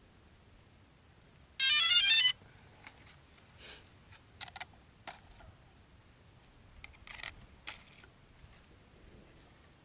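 A DJI quadcopter drone's electronic power-on melody, a quick run of beeping notes lasting under a second, about two seconds in. Scattered light plastic clicks and rattles follow as the drone is handled.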